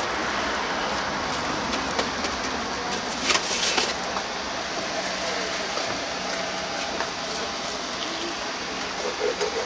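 Steady street noise with passing traffic, and a few light knocks and rustles as cut sundae and organ-meat pieces are packed into a styrofoam container on a wooden cutting board.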